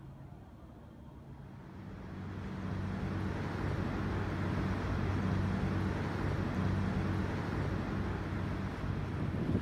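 Steady low engine hum with a rushing noise, swelling up about two seconds in and then holding steady.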